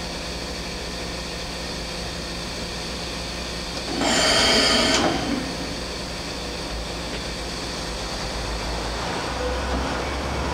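Mazak VCN-410A vertical machining center running through an automatic tool change: a steady machine hum, with one loud burst lasting about a second about four seconds in. Near the end the hum rises as the spindle head travels down.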